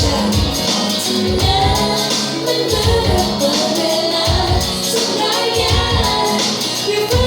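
A band playing a song, with a sung melody over a steady beat.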